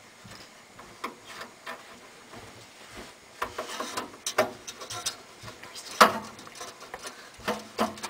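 Irregular small clicks and scrapes of a screw being worked into an expansion-card bracket on a steel computer case, the screw reluctant to go in. The clicks come thicker in the middle, with one sharper click a little past halfway.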